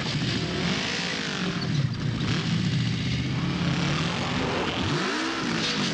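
Motorcycle engine revving hard in a chase, its pitch swinging up and down several times, with a quick rise and fall near the end.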